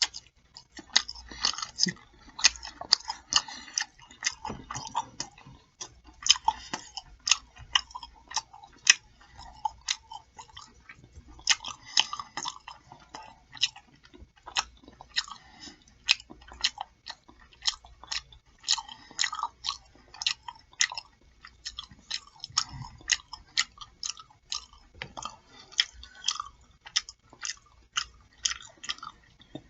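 Close-miked mouth sounds of eating: wet chewing and lip-smacking, a steady run of sharp smacks about two a second.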